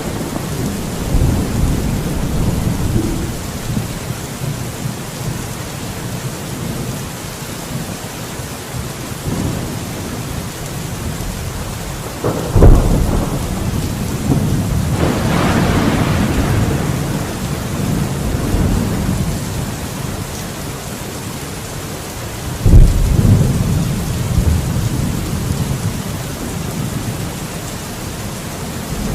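Thunderstorm: steady heavy rain with rolling thunder, two sharp thunderclaps about 13 and 23 seconds in, each followed by deep rumbling.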